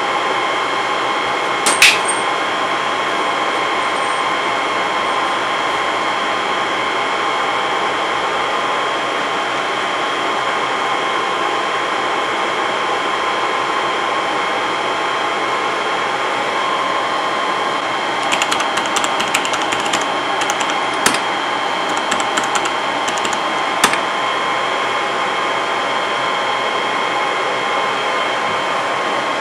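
IBM System x3250 rack server's cooling fans running with a steady whir and several steady whining tones. A single sharp click comes about two seconds in, and a run of keyboard clicks about two-thirds of the way through.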